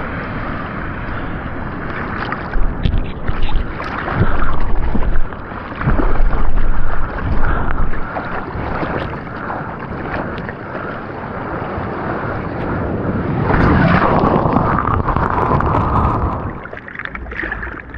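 Seawater sloshing and rushing around a surfer's action camera in the ocean, with wind buffeting the microphone. Louder surges of water come a few seconds in and again near the end.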